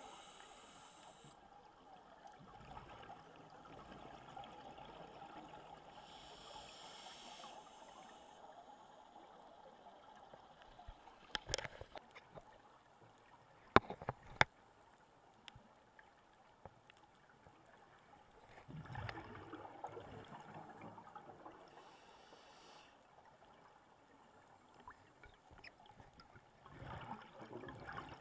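Scuba breathing heard underwater through a regulator: a few short hisses of inhalation and longer stretches of bubbling as exhaled air escapes. A few sharp clicks come about halfway through.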